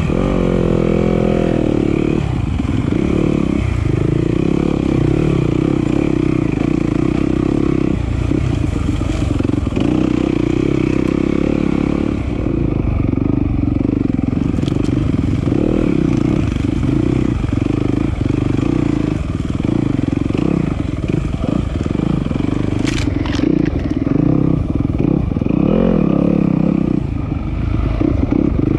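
Single-cylinder enduro dirt bike engine running under constantly changing throttle, revs rising about a second in. A couple of sharp clacks come through, in the middle and later on.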